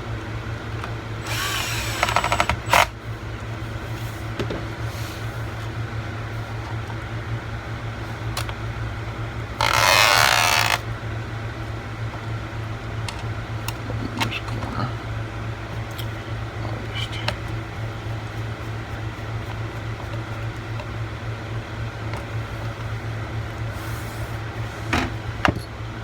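Small electric screwdriver whirring in two short runs, about two seconds in and about ten seconds in, driving screws back into a laptop's case, with a few small clicks near the end. A steady low hum runs underneath.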